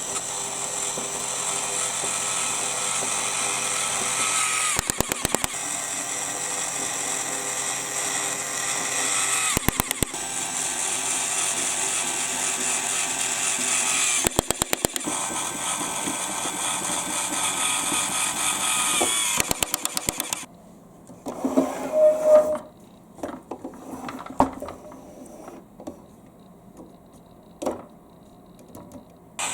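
Electric drill running steadily as the drive of a marble-run elevator, with a short rapid clatter about every five seconds. About two-thirds of the way in the drill stops, leaving scattered clicks and rattles of marbles on the plastic track.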